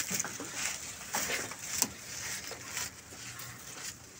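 Water buffalo tearing at and chewing a bunch of green fodder, with leaves rustling and stalks crackling and snapping irregularly and one sharp snap a little under two seconds in. The animal is eating well after its rumenotomy.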